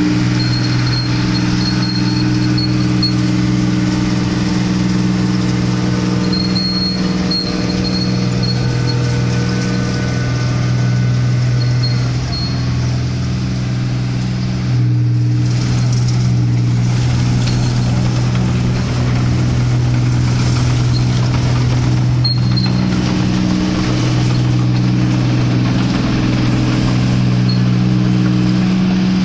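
Clayson 1545 combine harvester's engine running steadily at working speed as the machine moves, with a slight sag in level about twelve seconds in.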